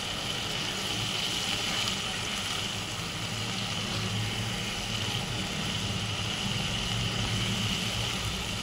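Anda bhurji frying in a pan over a high gas flame, with a steady sizzle and a steady low hum underneath.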